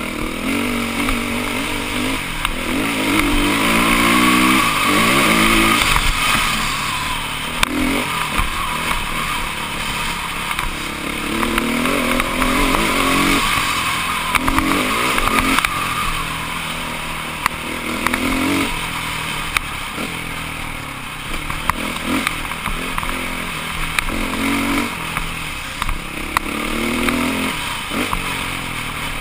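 Dirt bike engine heard from the bike being ridden, revving up and easing off again and again as it accelerates through the gears, with scattered knocks and rattles over the rough trail.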